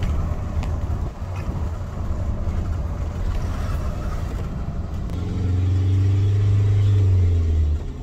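Camper van on the move, heard from inside the cab: a steady low engine and road rumble. About five seconds in, a louder low drone with a steady pitch sets in and cuts off suddenly near the end.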